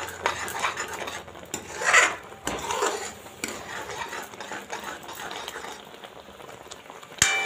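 Metal spoon stirring and scraping thick, bubbling rabdi (milk cooked down) around a metal kadhai, with clinks of spoon on pan. The strokes are louder in the first half and softer later. Near the end comes a sharp knock with a short ringing tone.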